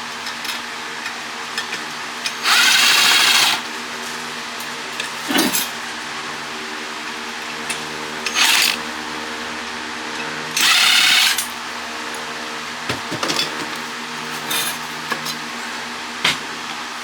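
Power drill with a hex bit spinning in three short bursts of about a second each, driving fasteners on an electric motor being dismantled, with light metal clinks and knocks between the bursts.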